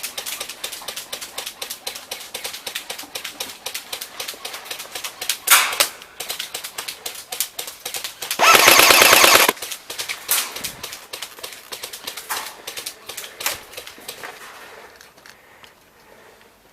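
Airsoft guns firing, a rapid rattle of shots with one loud, close burst of full-auto fire lasting about a second, about eight and a half seconds in. The shooting thins out and fades near the end.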